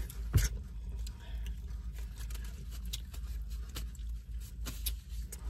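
Eating sounds from hot chicken wings: wet chewing, lip smacking and small clicks from biting and handling the wings, with one sharper click about half a second in, over a low steady hum.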